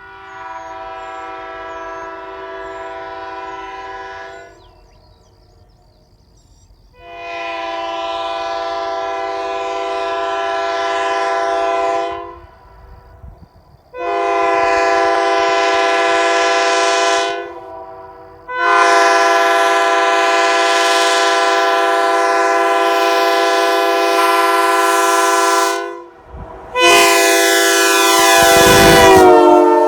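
Leslie Supertyfon S3K three-chime aluminum air horn sounding five blasts of a steady chord, growing louder from one blast to the next. In the last and loudest blast the chord slides down in pitch near the end as the horn passes by on a run-by.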